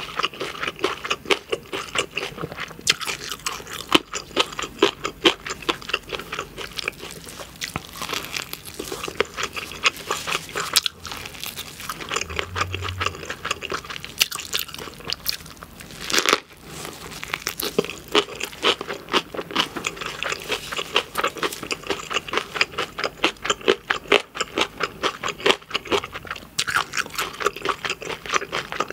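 Close-miked chewing of a thick gimbap roll: a rapid, steady run of crunchy, moist chewing and biting, with one louder crunch about sixteen seconds in.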